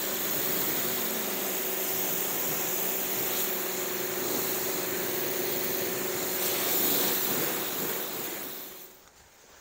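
Pressure washer spraying, rinsing soap foam off a vehicle: a steady hiss of the water jet with a steady motor hum under it, fading out near the end.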